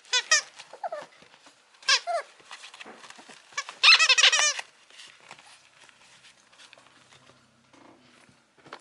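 A mame shiba puppy whining in high-pitched cries: short cries near the start and about two seconds in, then a quick run of cries around four seconds in, after which only fainter sounds follow.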